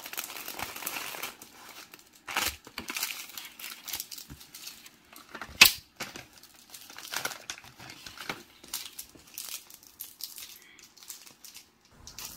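Plastic snack packaging crinkling and rustling on and off as it is handled and opened, with one sharper crackle about five and a half seconds in.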